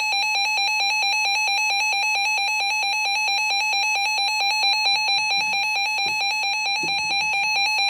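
A weather alert radio's alarm sounding, signalling an incoming warning: a loud, high-pitched electronic tone pulsing rapidly and evenly, about ten pulses a second, without a break.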